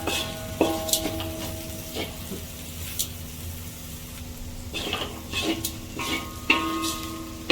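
A metal spoon stirring vegetables in a metal pan, knocking against it several times, with the pan ringing after each knock. There is a quieter pause in the middle, then more frequent knocks near the end.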